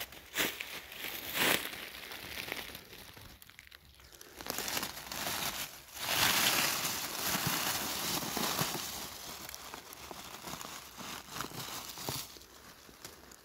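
Dry fallen beech leaves crunching under a few footsteps at first, then rustling and crinkling as a hand pushes through and brushes them aside. The rustling is loudest about six seconds in and dies away near the end.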